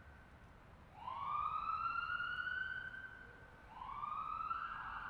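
Siren wailing: a tone swoops up, holds and fades away, then starts again, twice, about three seconds apart.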